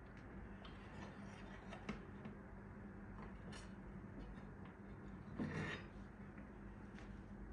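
Faint small clicks and taps of objects being handled, with one brief louder rustle or scrape about five and a half seconds in, over a low steady hum.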